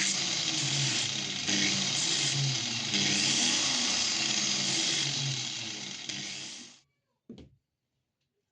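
A power tool running loudly, with a regular low throb, until it stops abruptly about seven seconds in; a single short knock follows.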